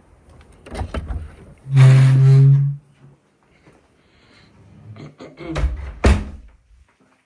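Knocks and thuds of handling, clustered about a second in and again near the end, with one sharper knock. About two seconds in, a low steady hum-like tone holds for about a second and is the loudest sound.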